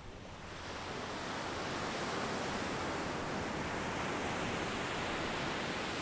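Ocean surf: a wave breaking and washing up the beach. The rush builds over the first two seconds and holds steady.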